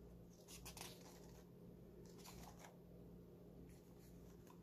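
Near silence with a few faint paper rustles as pages of a ring-bound planner are turned by hand.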